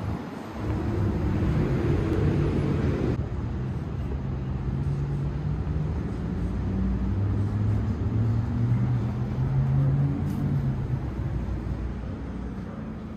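City street ambience: traffic running by with a steady low engine hum.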